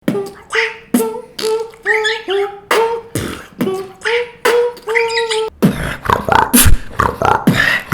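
Human beatboxing: mouth-made drum hits about twice a second with hummed notes carried between them. About five and a half seconds in it turns to a denser beat with deep bass kicks.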